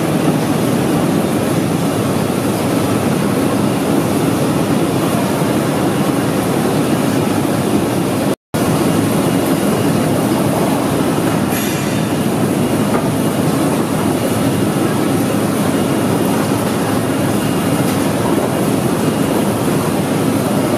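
Steady, loud machinery noise of a poultry processing line: the pre-chiller and its output conveyor belt running. The noise cuts out for an instant about eight seconds in.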